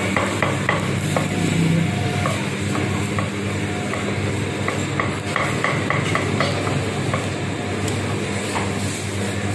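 Chinese cleaver chopping and slicing roast char siu on a thick round wooden chopping block: a run of irregular sharp knocks over a steady low hum and kitchen background noise.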